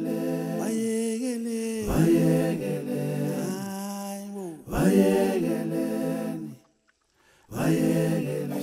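A cappella vocal music: several voices sing long held chords in harmony, phrase after phrase, with a short break about seven seconds in.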